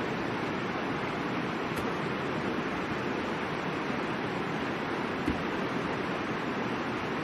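River water rushing steadily, with two short pops from a campfire: a faint one about two seconds in and a louder one about five seconds in.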